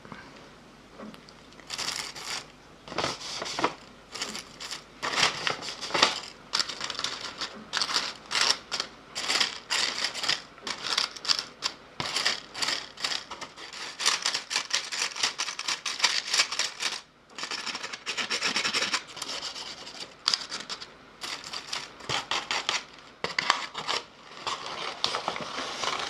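Close-miked ASMR rubbing and scratching sounds: a rapid, irregular run of short rasping strokes with a brief pause midway.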